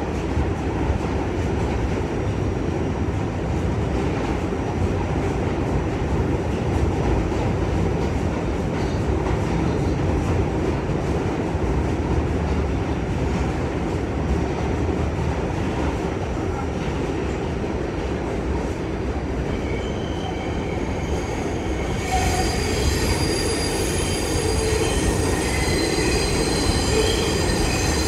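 R46 subway car running on the rails, heard from inside the car: a steady rumble and rattle of wheels and car body. About three-quarters of the way through, the sound gets louder and a high-pitched metallic squeal sets in, holding several steady shrill tones.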